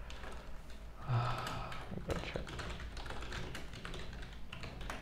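Typing on a computer keyboard: a quick, uneven run of key clicks as a search query is entered. About a second in there is a brief, louder, low sound.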